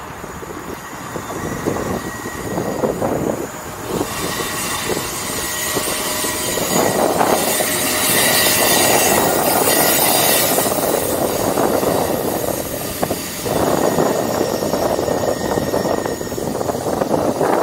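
Wind buffeting the microphone of a camera carried on a moving bicycle, rising and falling in gusts, with a steady rushing noise that grows louder about four seconds in and is strongest in the middle.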